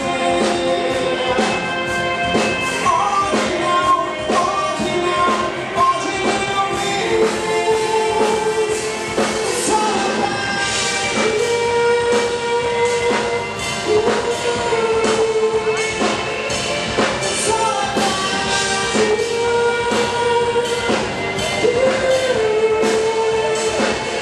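Rock band playing live: a singer holds long notes over a drum kit and backing instruments.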